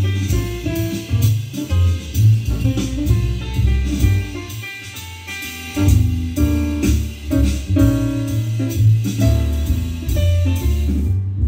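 Music with a heavy bass line and a steady beat played through a Wenstone Stadium 1200 powered mixer amplifier under test after repair. It gets softer for a couple of seconds midway, then comes back up.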